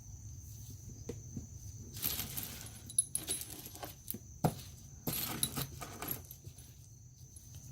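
Freshly tumbled metal nuts and bolts clinking and jangling together as they are handled, in several short bursts of rattling with a sharp click between them.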